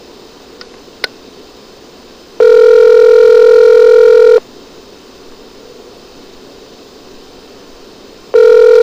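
Telephone ringback tone heard down the line: a steady two-note ring lasting about two seconds, then a four-second pause before the next ring starts near the end. It is the North American ringing cadence of an outgoing call not yet answered. A faint click comes about a second in.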